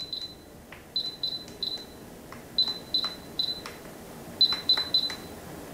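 Instant Pot Ultra control dial being turned a step at a time, each step giving a short high beep from the cooker as the cook time counts up a minute. About ten beeps come in bursts of two or three, with faint clicks between them.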